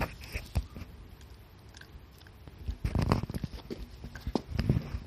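Shiba Inu biting and crunching a hard dried chew stick, in two bursts of quick crackly bites, the first about 3 seconds in and the second near the end, after a few single clicks at the start.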